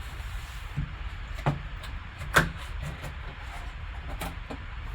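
A large cardboard box and its packing being handled and pulled open by hand: a few sharp knocks and scrapes, the loudest about two and a half seconds in, over a steady low hum.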